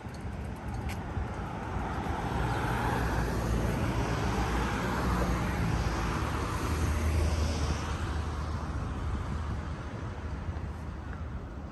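Road traffic passing on the street alongside: tyre and engine noise builds, is loudest about seven seconds in with a low engine hum, then fades.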